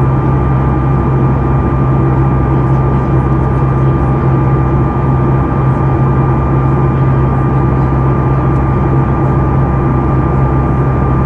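Boeing 737 MAX 8's CFM LEAP-1B turbofan engines heard from inside the cabin in flight: a steady, loud drone with a thin steady whine on top.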